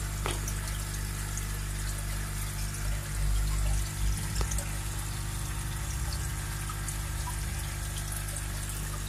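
Pond overflow water pouring from a pipe into a fish fry tank: a steady splashing trickle, over a steady low hum.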